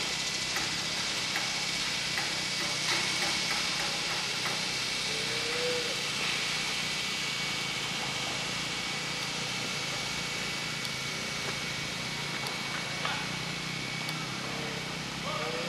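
Steady machinery hum with a thin high whine, likely dairy-barn equipment, with a few faint short calls and clicks over it.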